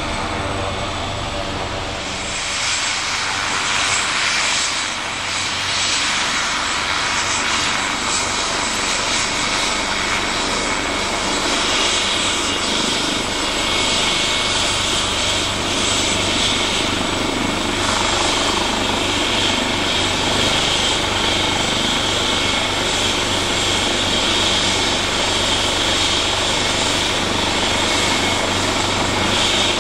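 Helicopter turbine engine and rotor running loud and steady through a takeoff. A high turbine whine grows stronger about twelve seconds in.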